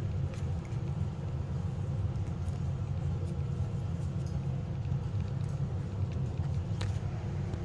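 Electric floor fan running with a steady low hum, and a few faint clicks over it.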